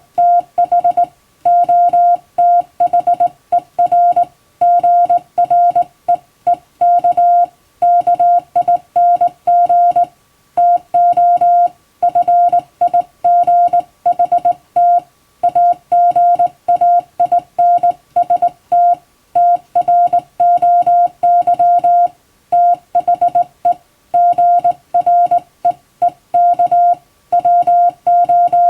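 Hand-sent international Morse code: a single steady mid-pitched tone keyed on and off in dots and dashes, with short gaps between letters and words, sending English-text practice telegrams.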